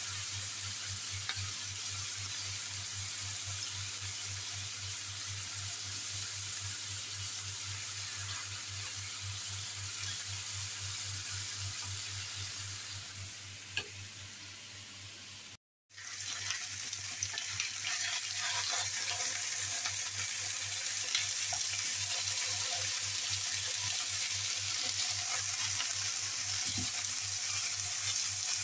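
Bone-in rib chops sizzling steadily as they fry in butter in a non-stick pan. The sound cuts out abruptly for a moment a little past halfway, then the sizzling comes back somewhat louder.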